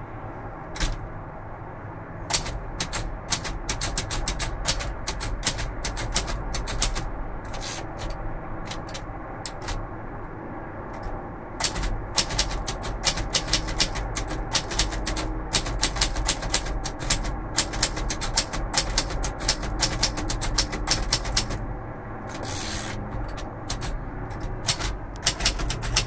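A 1942 Royal Arrow manual portable typewriter being typed on: rapid clacking of keystrokes, in uneven bursts at first with a pause of a few seconds, then faster and steadier from about halfway.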